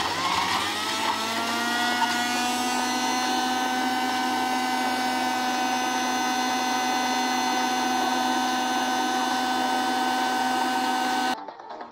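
Countertop 3-in-1 juicer-blender motor starting up, its whine rising in pitch over the first couple of seconds, then running steadily as it chops a jar of onions, garlic and red chillies. It cuts off suddenly near the end.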